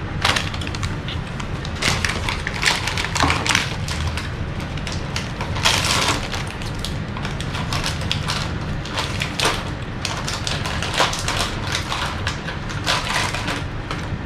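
Close-miked eating sounds: irregular crisp crunching and chewing, typical of biting into kimchi, over a steady low hum.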